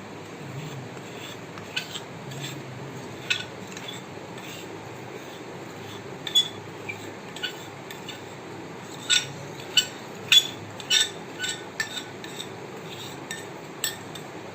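A metal utensil clinking and scraping against a pan as milk, cocoa powder, cornflour and sugar are stirred together for a chocolate mousse base. The sharp clinks come a few seconds apart at first, then quicken near the end.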